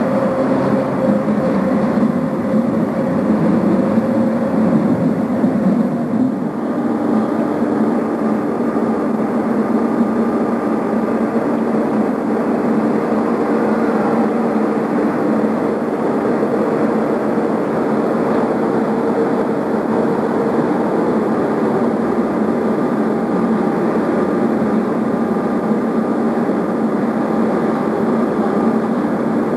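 A DB class 103 electric locomotive runs past, giving a steady running noise with humming tones. About six and a half seconds in, the sound shifts to a passenger train moving on the station tracks, steady with a constant hum.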